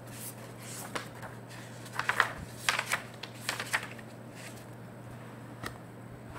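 A short run of soft clicks and rustles, handling noise at a desk, in the first four seconds, over a steady low hum.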